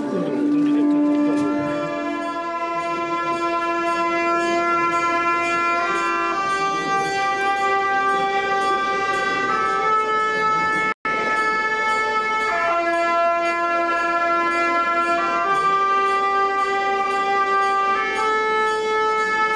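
Tibetan ritual shawm (gyaling) playing a slow melody of long held, reedy notes that step up and down in pitch. The sound cuts out for an instant about eleven seconds in.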